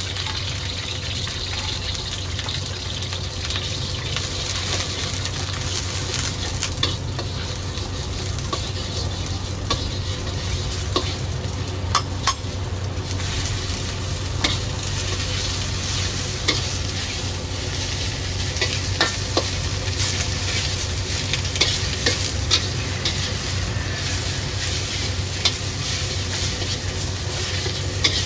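Egg and greens sizzling in a hot carbon-steel wok over a gas burner while a metal wok spatula stirs and scrapes, with sharp clinks of the spatula against the pan, more frequent in the second half. A steady low hum runs underneath.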